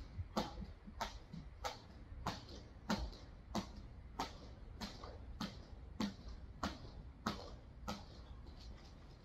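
Heavy battle rope slapping a concrete floor in a steady rhythm, a sharp slap about every two-thirds of a second, stopping shortly before the end.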